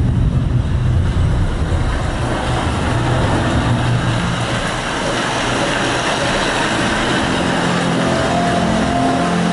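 Home theatre demo soundtrack played loud through a 5.1.2 surround speaker system: a deep rumbling effect that gives way to a rushing noise, with held musical tones coming in near the end.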